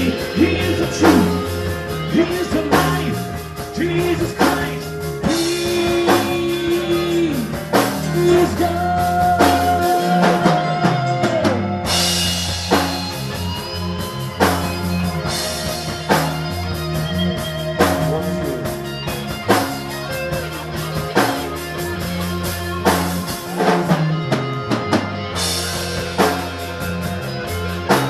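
Live rock band playing an instrumental passage: drum kit keeping a steady beat under bass and guitar, with the cymbals dropping out briefly twice.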